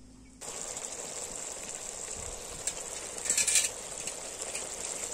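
Goat intestine gravy sizzling in a kadai as it cooks down, a steady hiss that starts abruptly about half a second in. A few short clicks come a little after the middle.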